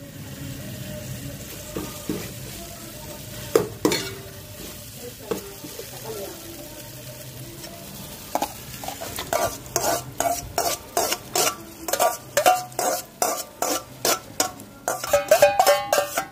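Onions and whole spices sizzling in oil in a steel pot, stirred with a steel skimmer that knocks now and then against the pot. From about eight seconds in, a steel spoon clinks against a steel bowl again and again, about two clinks a second and faster near the end, as marinated chicken is scraped into the pot.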